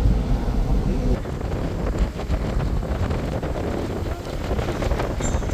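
Wind buffeting the microphone over the low, steady rumble of a car driving, with a few faint knocks and ticks.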